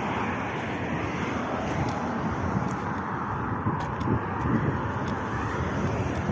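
Steady road traffic noise: a continuous wash of cars driving past on a road close by.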